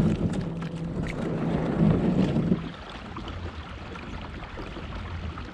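Kayak moving on lake water: a steady low hum with water and wind noise that stops a little under three seconds in, leaving quieter water and wind noise.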